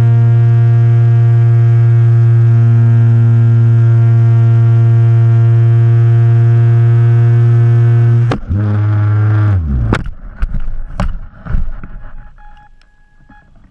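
RC airplane's motor and propeller running at a steady loud drone, heard from a camera on the plane. About eight seconds in, the pitch drops and winds down, then come several sharp knocks and scrapes as the plane hits the ground in a crash.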